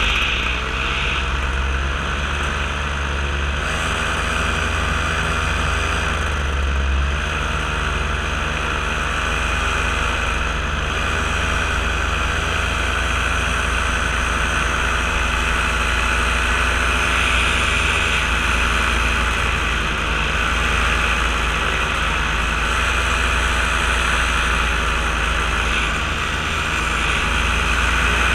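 Paramotor engine and propeller running steadily in flight under a strong, even rush of air noise. The engine's pitch wavers slightly now and then.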